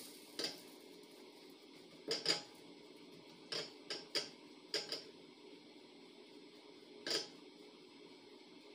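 Spatula scraping and knocking against a small nonstick frying pan while working under a small pancake, in short strokes: one just after the start, a pair about two seconds in, a cluster around four to five seconds, and one more near seven seconds.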